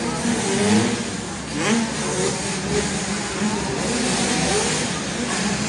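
Several 85cc two-stroke dirt bikes racing on an indoor track, their engines revving up and down and overlapping, echoing in the arena.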